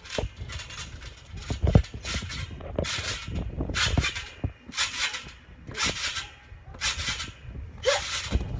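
Trampoline springs and mat sounding with each bounce, a regular rhythm of about one bounce a second, with a couple of heavier low thumps as feet land on the mat.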